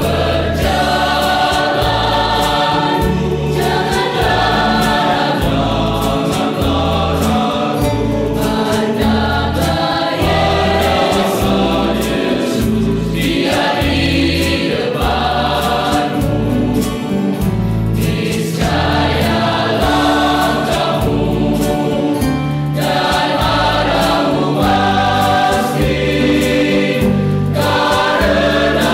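Mixed choir of men's and women's voices singing an Indonesian gospel hymn in parts, over a low bass line that moves in a steady rhythm.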